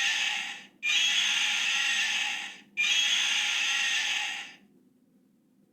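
Battery-powered toy dinosaur playing a recorded roar sound effect when its right leg is pressed. One roar ends about half a second in, then two more roars of nearly two seconds each follow with short gaps, the last one stopping about four and a half seconds in.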